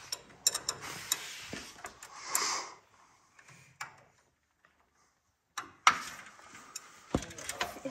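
A wrench clinking and knocking against the steel front suspension of a race car while a ball joint is being worked on. There is a cluster of sharp clicks at the start, a quiet pause in the middle, then more clicks with a sharp knock and a dull thump near the end.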